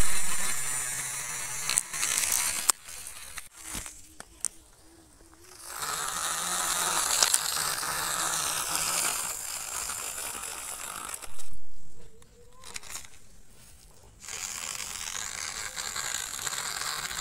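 Small DC motors driving the wheels of a homemade toy car, whirring with a high whine that wavers up and down in pitch as it runs over dirt. The whine drops away twice, and there are a few sharp clicks.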